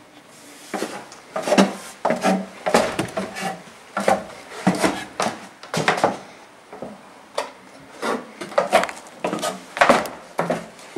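Footsteps on wooden boards, with irregular knocks and creaks of the wood about every half second to second.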